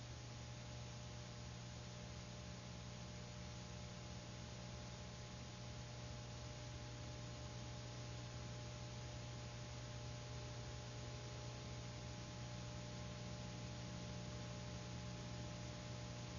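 Steady low electrical hum with a faint hiss, the background noise of an old archival film soundtrack.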